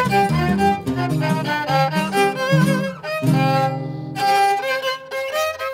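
Instrumental music: a violin plays a melody of changing notes over sustained lower string notes.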